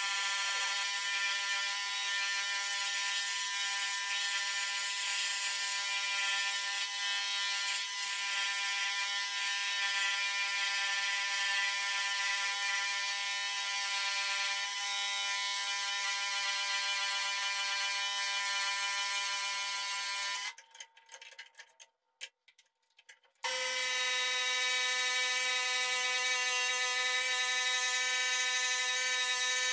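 Electric bench scroll saw running and cutting a wooden board, a steady buzz. It breaks off suddenly for about three seconds roughly two-thirds of the way through, then comes back at a slightly different pitch.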